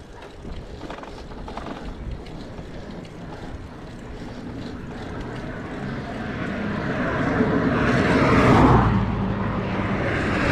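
A motor vehicle approaching and passing close by on the road, its engine and tyre noise swelling to a peak about eight seconds in and then easing, with another swelling at the very end.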